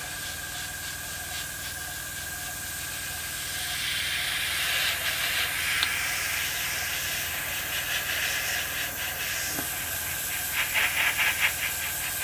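Airbrush spraying paint at low air pressure, a steady hiss of compressed air that grows louder about four seconds in, with a rapid fluttering near the end.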